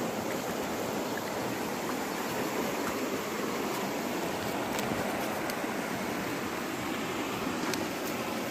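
Steady rush of a small flowing stream, with a few faint clicks.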